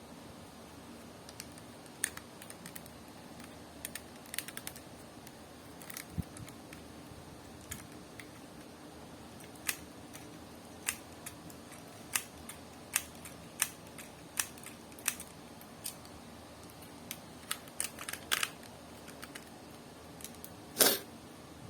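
Plastic Lego pieces being handled and snapped together during assembly: a run of sharp, irregular clicks, with one louder clack near the end.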